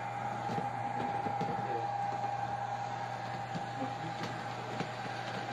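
OO gauge model locomotive running along the track of a DCC layout: a steady high motor whine over a low hum, with faint irregular clicks from the wheels on the rails.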